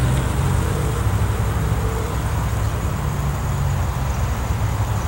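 Norfolk Southern diesel locomotives pulling an intermodal container train, their engines giving a steady low rumble.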